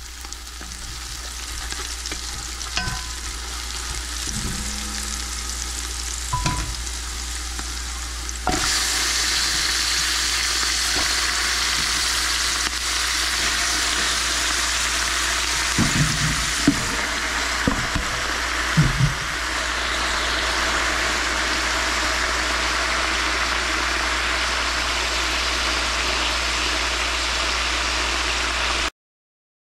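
Chopped leafy greens stir-frying in a hot pan: a steady sizzle that jumps louder about a third of the way in, with a few knocks as they are stirred past the middle. It cuts off suddenly near the end.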